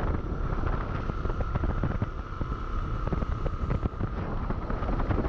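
Motorcycle riding on a dirt road: a dense low rumble of engine and tyres on the rough surface with wind on the microphone, frequent small knocks from bumps, and a thin steady whine.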